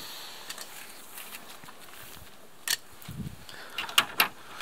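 Hard plastic clicks and a soft thump as a Subaru Outback's front grille is pressed back onto its clips: one click past halfway, a dull knock just after, then two sharp clicks close together near the end.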